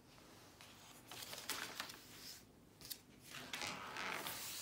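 Pages of a spiral-bound paper sketchbook being turned: faint paper rustling and swishing, once about a second in and again, longer, near the end, with a small tap in between.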